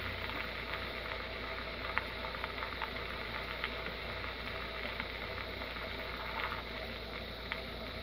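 Edison Standard B cylinder phonograph playing a celluloid Indestructible cylinder through its homemade funnel horn: a steady hiss of surface noise with scattered small clicks, the recorded music faint beneath it.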